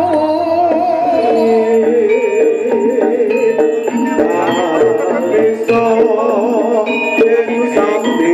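Javanese jaranan folk music: a continuous melody line with a quivering, ornamented pitch over held notes and short, light percussive notes.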